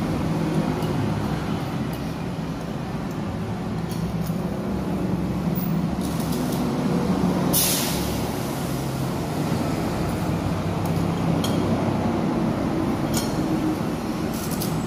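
Steady low engine rumble of vehicles running, with a wavering hum. A short sharp hiss about halfway through, and a few light clicks.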